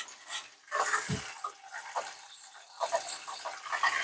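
Pink RV antifreeze running from a kitchen faucet into a stainless-steel sink in irregular spurts and gurgles as the camper's water lines are flushed out with the water pump.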